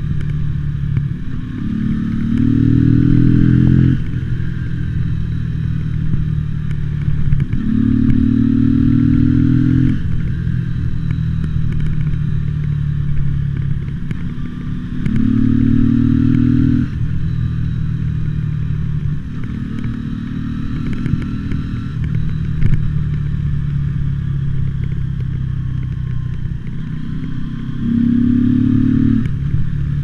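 Mutt Akita motorcycle engine riding through town in low gears, rising in pitch five times as the rider opens the throttle and dropping back between, with intermittent crackling clicks from the recording.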